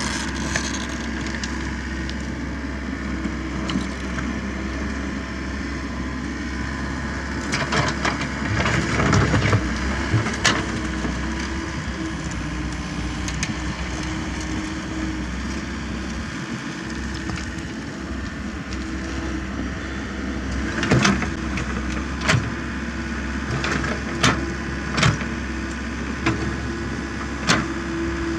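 Komatsu PC78US mini excavator's diesel engine running steadily under working load as its bucket digs through rocky soil. Sharp knocks and cracks of the steel bucket striking rocks and stones come in a cluster about a third of the way in and several more times near the end.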